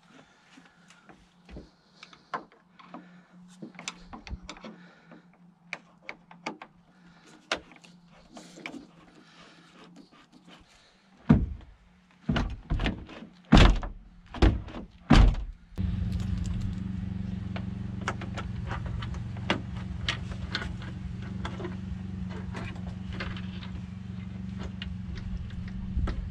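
Mercedes C-Class convertible door being worked on: light clicks and handling noises, then the door shut several times, about six heavy thunks in quick succession. After that a steady low hum sets in and carries on.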